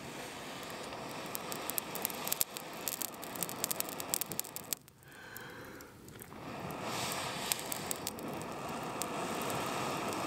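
Air blown through a metal blow tube onto smouldering overnight campfire coals to rekindle them: a steady rush of air with crackling and popping from the embers. The blowing breaks off for about a second and a half near the middle, for a breath, and then resumes.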